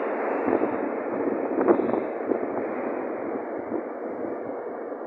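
Metro train noise in the station hall fading steadily as the train draws away, with a few faint clicks.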